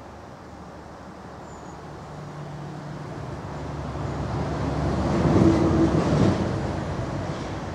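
A vehicle passing by: a low hum and a rushing noise that grow louder to a peak about five and a half seconds in, then fade.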